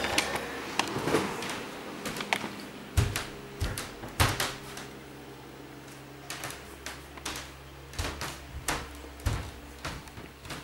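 Household objects being handled and set down: scattered knocks and clicks, a few louder ones about three and four seconds in and again around eight to nine seconds, over a steady low hum.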